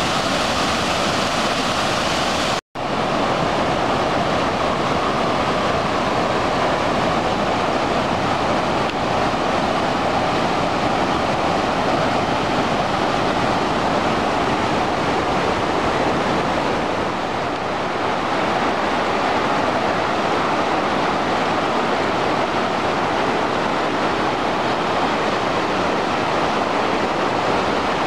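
Steady rush of muddy floodwater, the creek running high in flash flood over rock ledges and shallow rapids. The sound briefly drops out about three seconds in.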